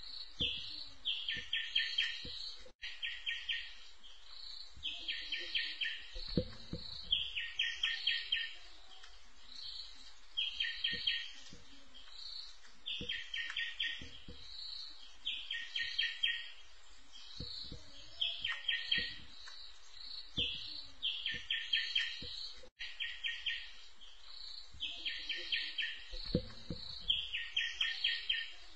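A bird call, a quick trill of about five clipped notes followed by a higher note, repeated evenly about every two seconds. A few faint low thumps come in between.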